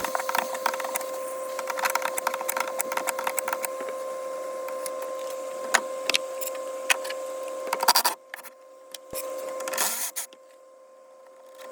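Dense sharp clicks and knocks from hand work on A/C parts, over a steady hum. The clicks thin out after about eight seconds and the sound grows quieter.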